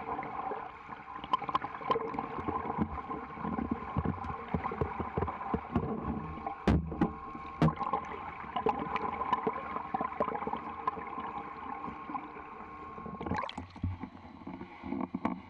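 Swimmer's front-crawl strokes heard underwater: muffled splashing and bubbling with a steady hum underneath and a few sharp knocks. About thirteen seconds in the hum stops and the sound changes as the microphone comes up through the surface.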